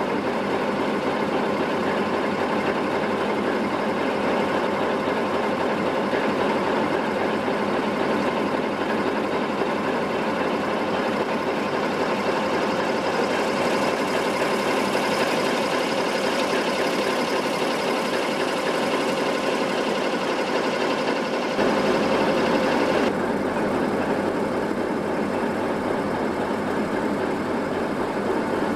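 Class 60 diesel locomotive's Mirrlees eight-cylinder engine running steadily up close. About three-quarters of the way through, the sound briefly steps up and then changes.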